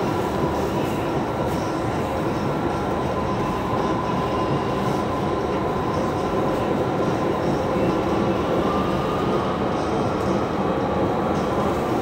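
Cabin noise of a Panama Metro Line 2 electric train running on its track: a steady rumble of wheels and running gear with a thin, steady whine above it.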